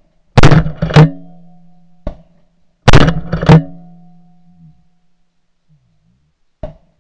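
Two bursts of about three sharp shotgun blasts in quick succession, the second burst coming about two and a half seconds after the first. Each burst rings on with a low, steady musical tone and has a short click just before it, as in an edited replay of the shots.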